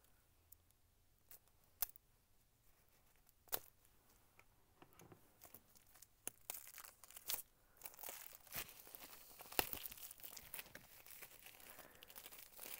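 Plastic shrink wrap being torn and crinkled off a pack of precut fabric charm squares. A few scattered faint crackles come first, then it grows dense in the second half.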